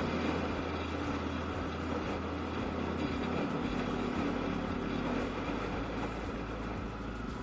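Yamaha Aerox scooter engine running steadily on the move, a constant drone under road and wind noise.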